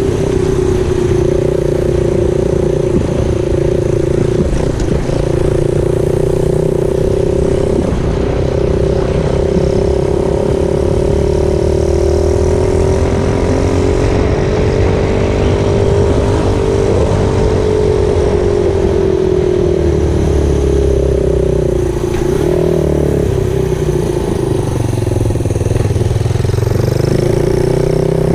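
Small motorcycle engine driving a homemade reverse trike under way, running steadily under load with its pitch gently rising and falling as road speed changes.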